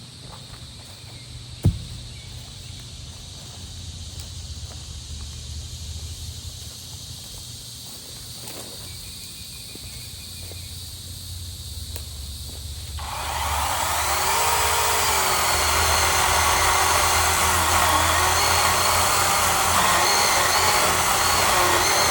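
A small motor-driven machine starts up a little over halfway through and runs steadily and loud, with a wavering whine. Before it there is only a faint low hum and one sharp knock.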